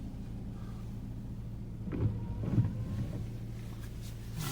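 Steady low drone of a car's engine and road noise heard from inside the cabin. Faint voices come in briefly about halfway through.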